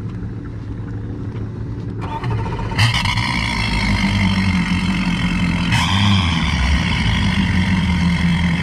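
Twin Mercury Racing 450R outboard engines running at idle, with a sudden step up in loudness about three seconds in, after which the running sound is fuller and steady.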